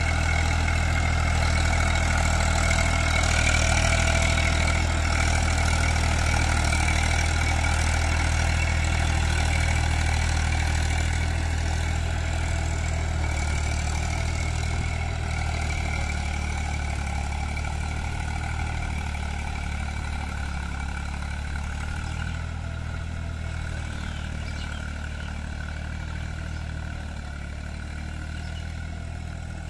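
Eicher 380 tractor's three-cylinder diesel engine running steadily under load while it pulls a rotavator through wet paddy mud. It grows gradually fainter as the tractor moves away.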